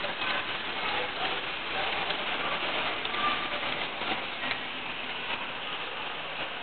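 H0-scale model trains running on the layout: a steady, fine rattling hiss of small wheels on the track, with faint snatches of voices behind it.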